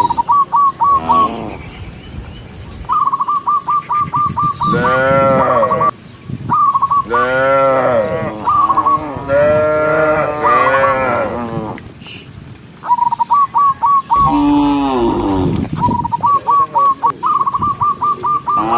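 Cows mooing again and again, several long calls that rise and fall in pitch, some overlapping one another. Between and over the moos comes a rapid run of short, high repeated notes.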